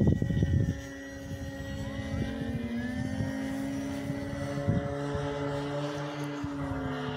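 Electric motors and propellers of 2-metre RC Cessna model planes flying overhead: a steady drone at several pitches that drift a little as the planes pass. A loud low rumble covers the first second.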